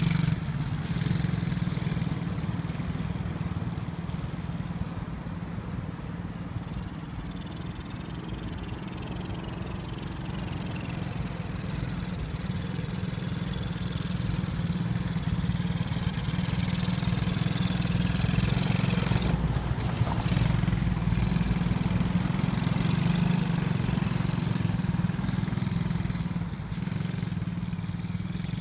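125 cc petrol engine of a MOTAX ATV A-23 youth quad bike running steadily as it is ridden. It grows louder toward the middle and drops off again near the end.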